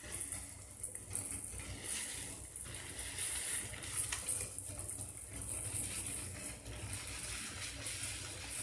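Fine sand pouring from a plastic bag into a glass terrarium bowl and being spread with a plastic-gloved hand: a rustling, trickling hiss that comes and goes, over a low steady hum.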